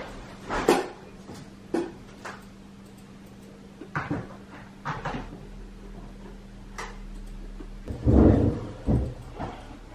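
Scattered light knocks and clatters in a small room, with a louder cluster of low thuds about eight seconds in, over a faint steady hum that stops shortly before the thuds.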